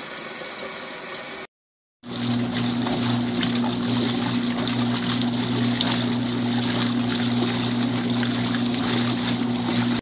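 1981 Inglis Niagara top-loading washing machine agitating a full tub: water sloshing and churning around the agitator over a steady low hum from the machine. The sound cuts out for half a second about one and a half seconds in and comes back louder.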